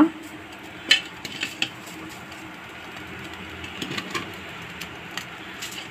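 A spoon clinking and scraping against a pot as cooked fish biryani is mixed: a few sharp clinks about a second in and again around four seconds, over a steady background hum.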